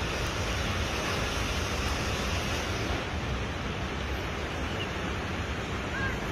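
A river in flood, its swollen brown water rushing past in a steady, even noise.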